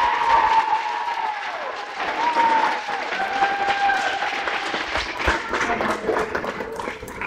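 A small group of children and adults clapping, with high children's voices cheering over the applause. The applause is loudest at the start and tapers off.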